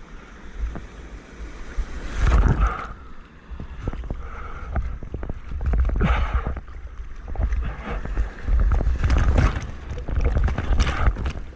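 Ocean water rushing and splashing in surges a few seconds apart, with heavy wind buffeting the microphone.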